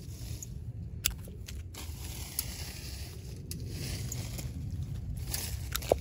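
Hand bypass pruners snipping small sucker shoots off the base of a holly trunk: several sharp snips scattered through, the loudest just before the end, over a steady low rumble.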